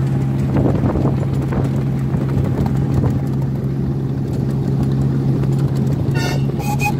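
Miniature railway diesel locomotive running steadily at speed with a constant low engine hum, while the carriage wheels rattle and click over the rail joints. A brief high-pitched sound cuts in near the end.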